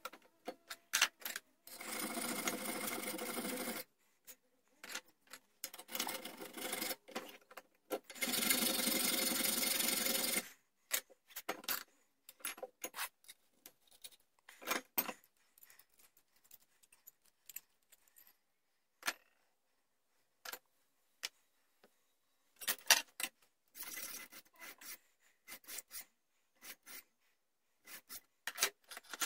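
Metalwork on small steel lock parts held in a bench vise: two steady stretches of about two seconds each of a tool working the metal early on, then scattered clicks, taps and short scrapes as parts and tools are handled, a screw is driven into the priming pan and a file is put to the metal.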